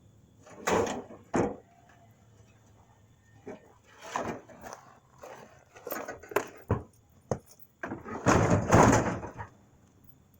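Sheet-metal clanks and thumps as an old truck's fender is worked loose, a series of separate knocks, ending in a louder clattering scrape lasting about a second near the end.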